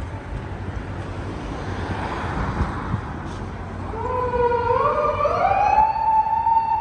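Japanese police patrol car siren starting up, its wail climbing in pitch from about four seconds in and holding high near the end, over the steady noise of city traffic.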